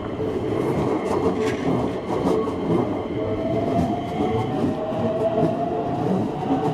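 Keikyu electric train running past at a level crossing, its wheels clacking over the rail joints. A rising whine comes in about three seconds in.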